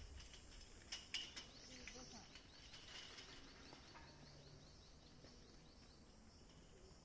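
Near silence: faint outdoor background with two sharp clicks about a second in and a faint, high, rapidly repeating chirping.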